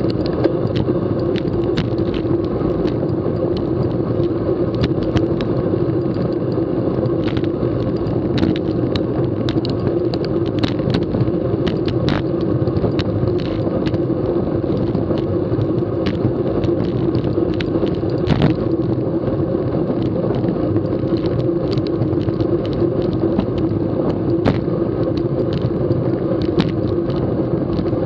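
Riding noise picked up by a camera mounted on a racing bicycle: a steady hum of tyres on asphalt mixed with wind, and frequent small clicks and rattles.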